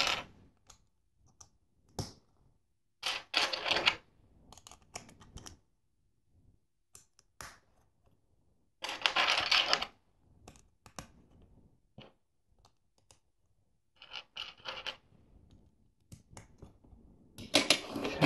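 Loose LEGO plastic pieces clattering and clicking in short bursts as a hand sorts through a pile of bricks and plates, with lighter clicks as plates are pressed onto the build.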